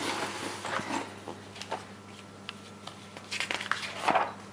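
A few soft rustles and light taps of paper being handled, with a steady faint hum underneath: a model kit's instruction manual being lifted out and opened, the loudest rustle just after four seconds in.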